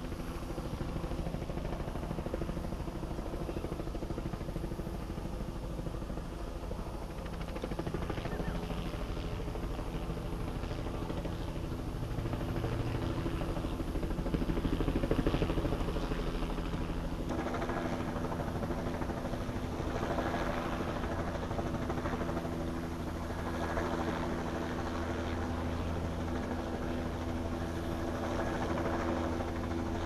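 Steady drone of running engines, with a low hum and a set of steady tones whose pattern shifts about halfway through.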